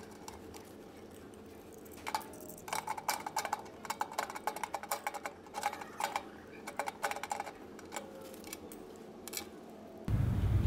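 Irregular small clicks, ticks and rattles of wire and cable being handled and pushed into terminal blocks inside a metal electrical control panel enclosure. A louder steady low noise comes in near the end.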